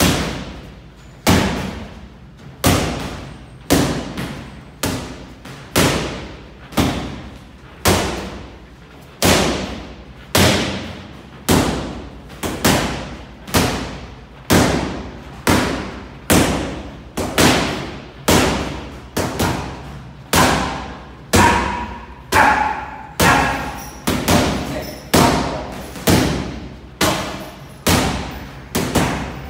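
Boxing gloves punching focus mitts: a long run of sharp slapping hits, about one to two a second at an uneven pace, each with a short echo.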